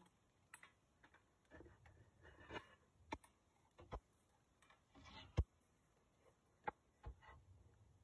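Near silence broken by about half a dozen sharp clicks and knocks and some soft rustling, as of small objects being handled; the loudest knock comes about five and a half seconds in.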